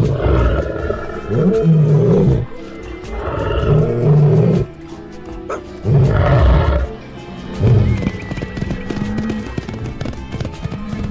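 Large animals roaring and calling in about five loud, low calls over background music, with a quieter stretch after about eight seconds.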